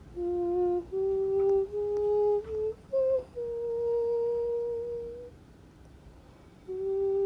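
A person softly humming a slow lullaby-like tune in held notes that climb step by step. A longer held note sits in the middle, and near the end there is a pause of about a second and a half before the humming resumes.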